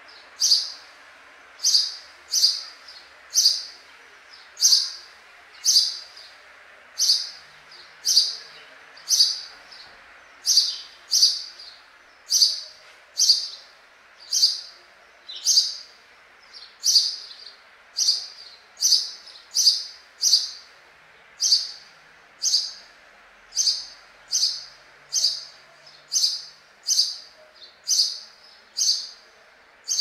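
A sparrow chirping: a long run of short, high, single chirps, about one a second.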